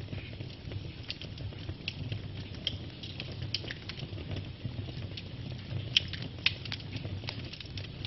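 Wood log fire crackling: scattered sharp pops and snaps over a low, steady rumble of the flames. Two louder pops come about six seconds in, half a second apart.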